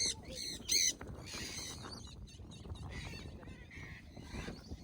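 A parrot calling: two loud, high screeching calls in the first second, then fainter calls about two and three seconds in.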